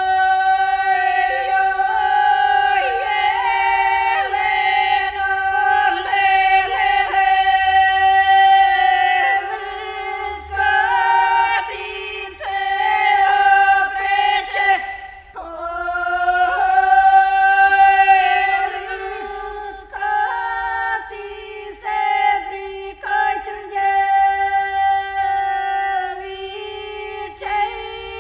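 Church chant sung slowly on one long held note with brief ornamental turns, breaking off about halfway through and resuming on the same pitch.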